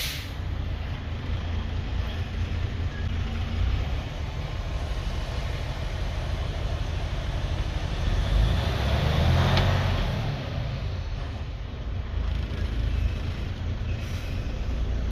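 Freightliner Cascadia's diesel engine running, heard from inside the cab: a steady low rumble that swells for a couple of seconds about two-thirds through, with a brief sharp hiss near the peak. This is the symptom of a slipping clutch on the DT12 automated transmission, where the engine speed goes up but the truck does not move.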